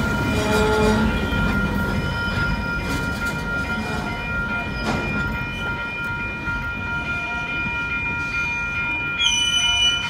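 Freight cars rolling slowly past, with steel wheels rumbling on the rails and thin, steady, high-pitched wheel squeal. There is a single sharp click about halfway through, and a higher squeal starts near the end as the last car goes by.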